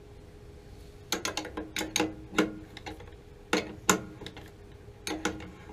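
Sharp metallic clicks and clinks of a hand tool working on a water heater's gas control valve and its fittings. They come in irregular clusters starting about a second in.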